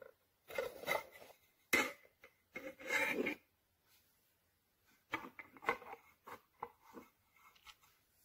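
Handling noise: two stretches of rubbing and scraping with a sharp click between them, then a string of light clicks and taps in the second half.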